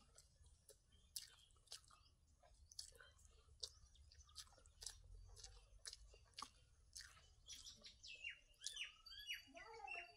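Faint wet clicks and smacks of someone eating soft idli soaked in mutton curry by hand and chewing it. Birds chirp faintly near the end.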